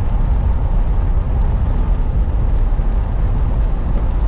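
Steady wind and road noise of a vehicle driving at highway speed, dominated by a deep rumble of wind buffeting the microphone.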